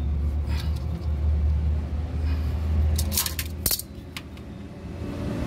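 Metal hand tools clinking in a quick cluster about three seconds in, over a steady low rumble.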